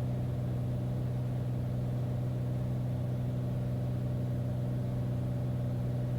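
Beechcraft Bonanza's six-cylinder piston engine and propeller droning steadily at approach power, heard from inside the cockpit through the headset intercom as a constant low hum.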